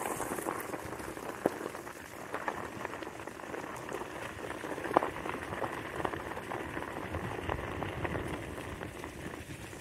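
Wheels rolling over dry fallen leaves and gravel: a steady crackling crunch, with a few sharp clicks, the loudest about five seconds in.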